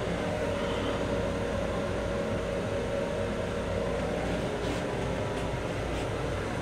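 Steady rumble and hum of a Long Island Rail Road M7 electric railcar heard from inside its small restroom, with three faint clicks in the second half.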